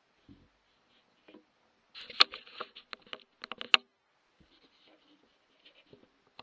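Handling noise picked up by the scope's own microphone: a cluster of sharp clicks and rustling as the rifle and thermal scope are handled, with the two loudest clicks about a second and a half apart, then faint rustles.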